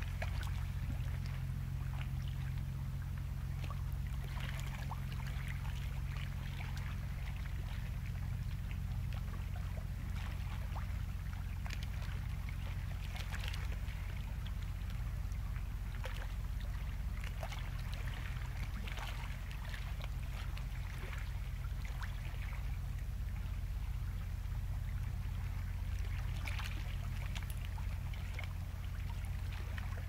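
Sea waves breaking on a rocky coast: a steady low rumble of surf with hissing swells of wash that rise and fall every few seconds.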